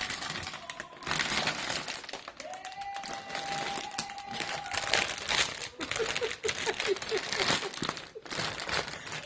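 Plastic tortilla-chip bag crinkling and crackling as it is tugged and pulled open at the sealed top by hand.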